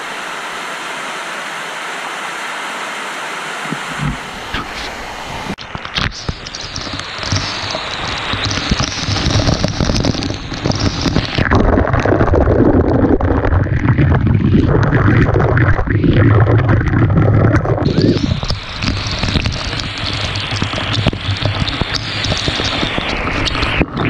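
Waterfall rushing steadily. From about five seconds in, falling water strikes the camera directly, turning the sound into a loud, buffeting rush with a heavy low rumble, strongest in the middle and easing back to a higher hiss near the end.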